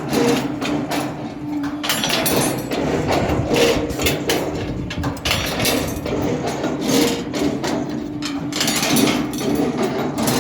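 CNC rebar bending machine at work: its motor hums steadily, stopping for a few seconds near the middle and then starting again, under repeated metal clanks and rattles as the steel bar is fed and bent.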